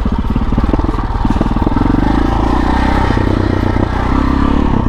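KTM 640 Adventure's big single-cylinder LC4 engine running under way, its note rising, dropping back and rising again as the rider works the throttle.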